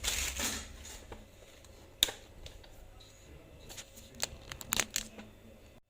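Light handling noises of boxes and packaging being moved: scattered soft rustles and knocks, with one sharper knock about two seconds in and a few clicks near the end.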